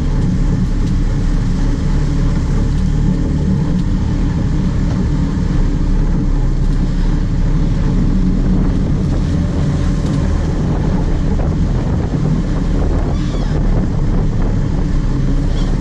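Sport-fishing boat's engine running steadily, a constant low hum, with wind buffeting the microphone.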